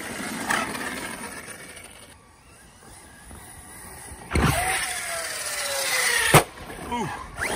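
ARRMA Outcast 6S RC truck's electric motor and drivetrain running in bursts. A noisy stretch fades out, then a sudden loud burst comes about four seconds in, with a whine that falls in pitch. A single sharp impact just after six seconds is the loudest sound.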